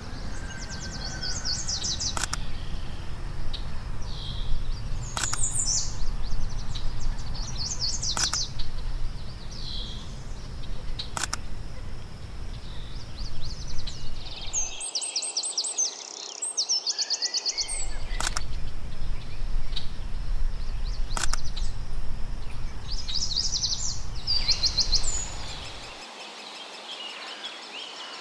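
Woodpecker nestlings calling from the nest hole in repeated bursts of rapid, high chattering notes, over a low wind rumble that cuts out twice. A faint click comes about every three seconds.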